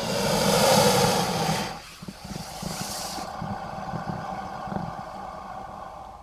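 Alligator breath sound effect: a loud breathy snort for about the first second and a half, then a lower, rough breath with faint clicks that cuts off abruptly near the end.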